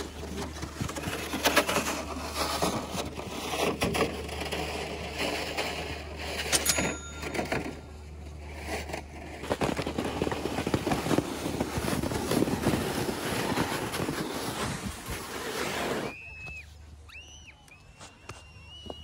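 Plastic snow sled sliding down a snowy slope: a continuous scraping hiss with knocks and rattles over bumps. It dies away a few seconds before the end as the sled slows.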